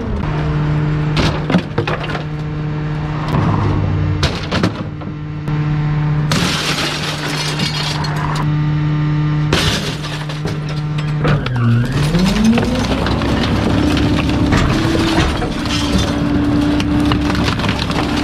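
Rear-loader garbage truck's hydraulic packer crushing a glass-paned window frame and wooden furniture in the hopper: glass shattering and wood cracking over the steady hum of the engine, revved up to drive the packer. About twelve seconds in, the engine's pitch dips and climbs back as the packer cycles.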